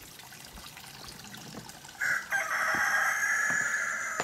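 A rooster crowing: a short note about two seconds in, then one long held call that stops near the end.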